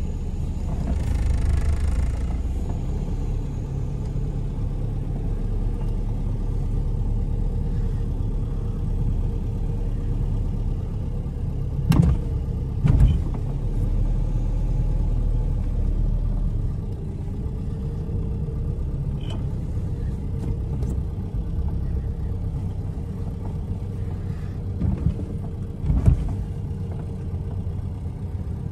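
Dodge Neon Sport Coupé's four-cylinder engine running steadily at low speed, heard from inside the cabin, with a low rumble. A few sharp thumps from the car break through, twice around halfway and once near the end.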